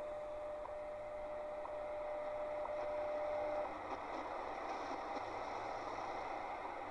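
Sony ICF-SW35 shortwave radio's speaker playing the 5 MHz time-signal broadcast through static: a steady tone with faint ticks once a second. The tone stops about three and a half seconds in, leaving hiss with the faint second ticks.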